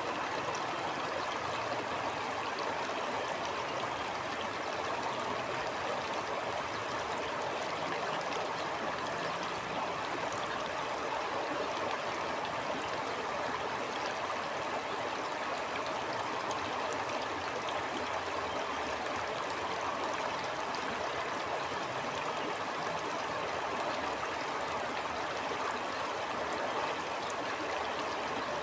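A stream flowing steadily over rocks, a continuous rushing with fine splashing and gurgling.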